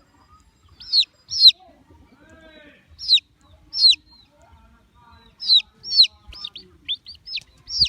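Baby chicks peeping: short, loud, high chirps that slide downward. A pair comes about a second in, another pair around three seconds, then a quicker run of chirps through the second half.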